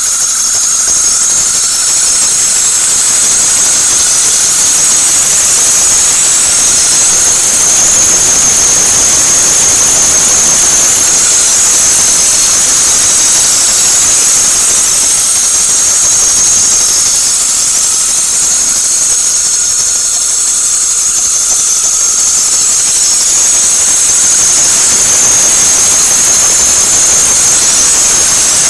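2006 Toyota Corolla engine running with a continuous high-pitched squeal. It is a squeal that the owner hears only in cold, damp weather and that rises in pitch as the engine speeds up.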